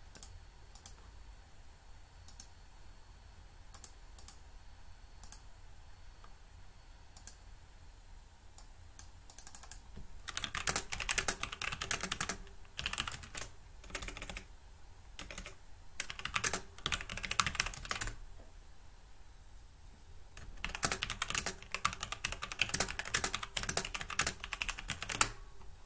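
Typing on a computer keyboard: a few scattered single clicks, then from about ten seconds in, several bursts of fast typing separated by short pauses.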